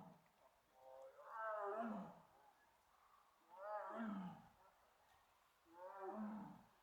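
Tiger calling three times, each call a short, moaning, pitched call that falls in pitch.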